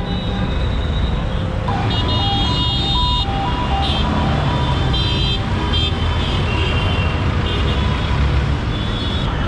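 Busy road traffic: engines running steadily, with vehicle horns honking in short repeated blasts between about two and six seconds in.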